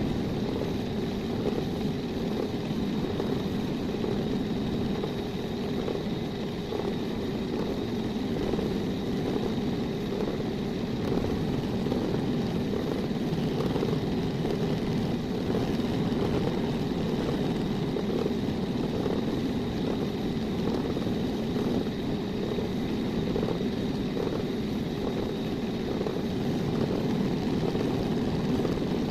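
An electric power tool motor running steadily without a break, with a thin high whine over a low hum.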